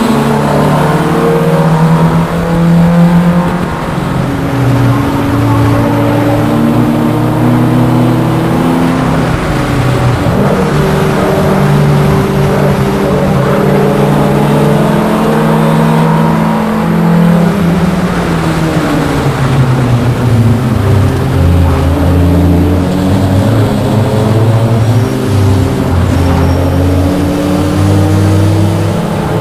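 Onboard sound of a VW Rabbit race car's engine at racing speed, loud throughout, its note climbing, holding and dropping in steps through gear changes, braking and acceleration.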